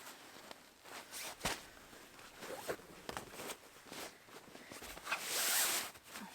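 Scattered rustling and handling sounds with footsteps, then a long rasping pull, like a zipper being drawn, about five seconds in.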